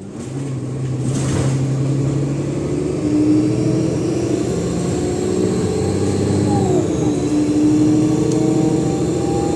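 Cummins ISLe340b diesel engine of an Alexander Dennis Enviro 500 double-decker bus pulling hard under kickdown, with a high turbo whistle over the engine note. The sound builds during the first second or two, then holds steady. About seven seconds in, the pitch dips briefly and then recovers.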